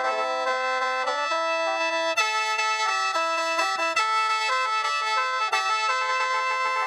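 Khaen, the Lao free-reed bamboo mouth organ, being played: several notes sound together, some held steady as a drone while the lower notes step from one pitch to the next.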